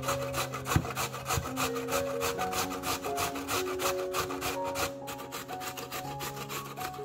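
A peeled raw potato rubbed up and down a stainless-steel box grater, rasping strokes at about four a second, with a sharper knock about a second in. Soft background music with held notes plays underneath.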